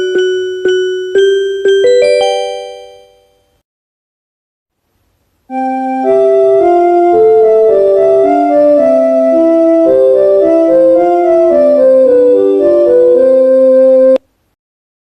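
Recreated Japanese train onboard chimes. The last few struck, bell-like notes of one chime fade out about three seconds in. After a short silence, a second chime melody of held notes plays for about nine seconds at a steady level and stops abruptly.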